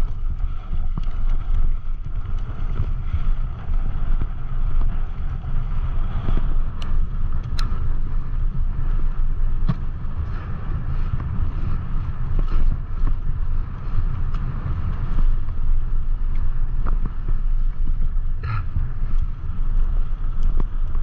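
Strong wind buffeting the microphone during a mountain-bike descent, a steady low rumble, with scattered sharp clicks and rattles from the bike on the trail.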